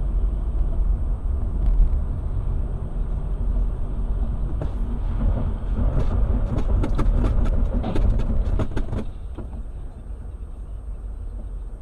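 Steady low rumble of engine and tyre noise inside a moving car, heard through a dashcam, with an irregular run of sharp clicks and knocks from about five to nine seconds in. The rumble drops a little after that.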